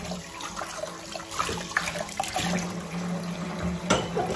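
Kitchen tap running steadily into a stainless steel sink, with clinks and knocks of pans and dishes being handled under it and one louder knock about four seconds in.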